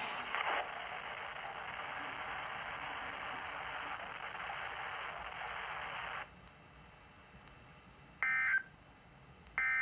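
Weather radio broadcast giving a steady hiss of dead air that cuts off about six seconds in, then two short bursts of warbling NOAA Weather Radio SAME data tones about a second and a half apart: the end-of-message code that closes the weekly alarm test.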